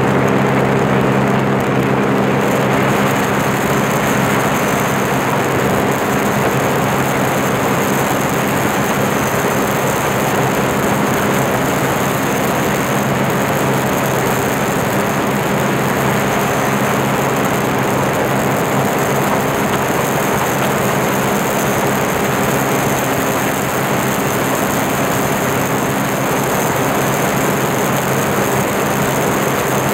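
Sea-Doo Spark's 900 HO ACE three-cylinder four-stroke engine running steadily at speed under a watercraft racing across flat water, over a steady rushing noise.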